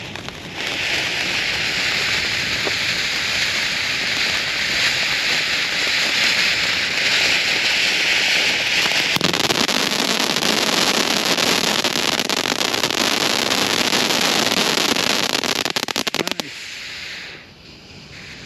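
Consumer firework going off. A steady rushing hiss lasts about eight seconds, then gives way to denser crackling with many rapid pops, which stops suddenly about two seconds before the end.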